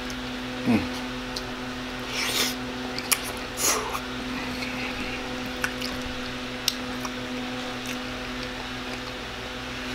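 Close-miked mouth sounds of a man eating spaghetti: slurping and chewing, with a few small wet clicks, over a steady low hum.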